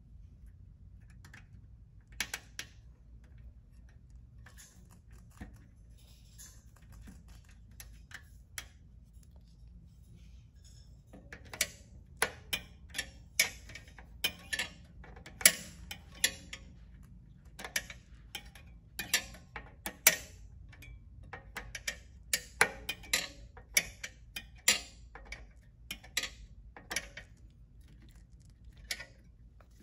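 Irregular small metal clicks and ticks of a hand tool working on a mechanical disc brake caliper. A few come early on, then many in quick succession from about a third of the way in until near the end.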